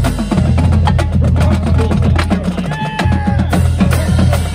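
Marching band drumline playing a cadence: rapid snare and tenor drum strokes over a line of pitched bass drums, steady and loud throughout.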